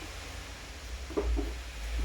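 Rain falling as a steady hiss, with a low rumble that swells about a second in and a short faint sound just after.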